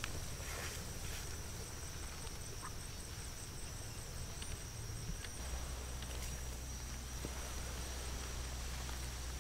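Steady outdoor ambience: a continuous high-pitched insect drone with a low rumble underneath that grows stronger about halfway through.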